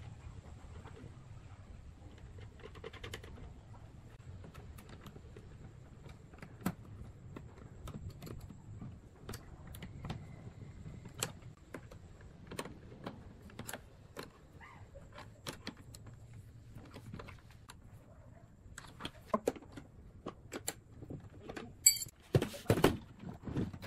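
A metal wrench clicking and clinking against the axle nuts as wheels are tightened onto a wooden board. The light clicks are scattered and irregular, over a faint steady hum, with a few louder clatters near the end.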